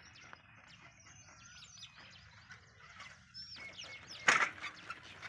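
Many small birds chirping in the trees with quick, high, sweeping notes. A little after four seconds there is one brief loud noise.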